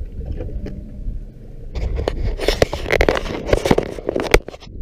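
Landing net with an aluminium handle being worked at the side of the boat: about two seconds in, a loud run of scraping, rattling knocks lasting about three seconds, over the low rumble of wind on the microphone.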